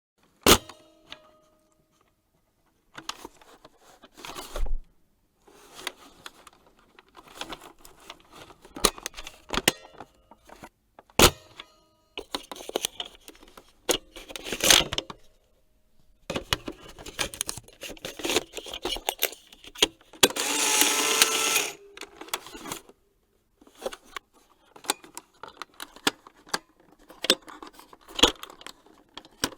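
Camera mechanism sound effects: a series of sharp shutter-like clicks and short mechanical clattering runs, with a longer continuous whirring rattle about two-thirds of the way through.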